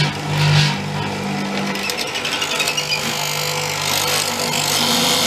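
Multico K/3 hollow-chisel mortiser running with a steady motor hum, its chisel cutting a square hole through the stacked pinion discs; the cutting noise rises and falls, loudest near the start.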